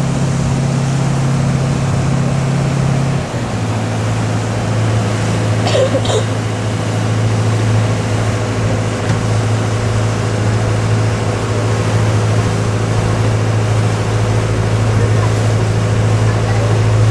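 Ferry engine running with a steady low hum over water and wind noise. The hum drops to a lower pitch about three seconds in as the boat throttles back coming alongside the pier.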